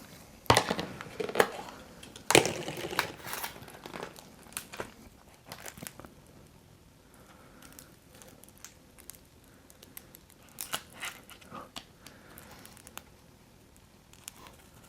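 Food packaging being handled and opened: crinkling and rustling with scattered sharp clicks and taps, busiest in the first few seconds and again near the end.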